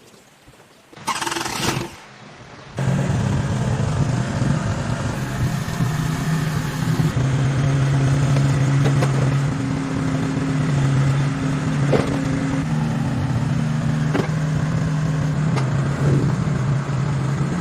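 An excavator's engine starts up about three seconds in, after a short loud burst of noise a second earlier, and then runs steadily, with a few sharp clicks over it.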